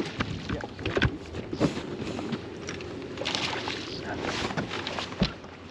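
Water lapping against a bass boat's hull, with scattered knocks and clicks on the deck and one louder thump about five seconds in.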